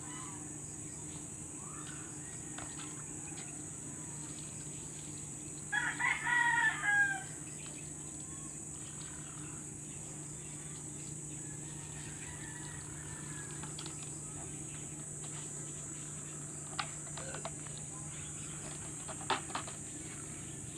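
A rooster crowing once, about six seconds in, over a steady high insect buzz. A few light clicks come near the end.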